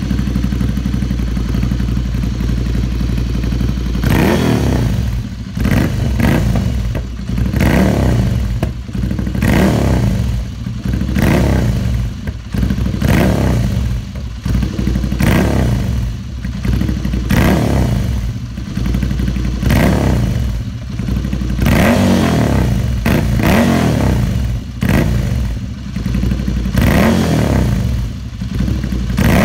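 Ducati Scrambler's L-twin engine running through a Two Brothers slip-on exhaust: it idles steadily for about four seconds, then is blipped in short revs, roughly one a second, for the rest of the time.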